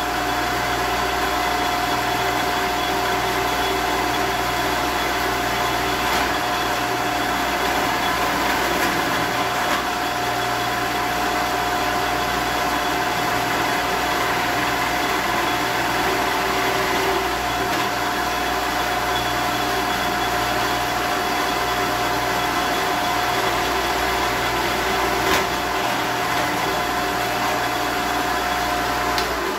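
1954 Shopsmith running as a drill press: a steady motor hum with a high whine as the bit bores into a wooden bass body blank.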